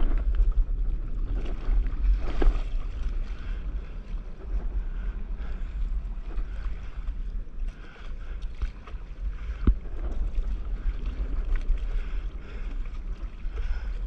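Wind buffeting the microphone over water lapping against a stand-up paddleboard on open sea, with a sharp knock about two and a half seconds in and another near ten seconds.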